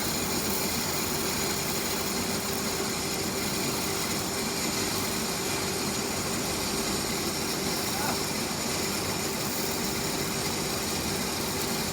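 A machine running steadily: an even whirring noise with a constant hum that does not change.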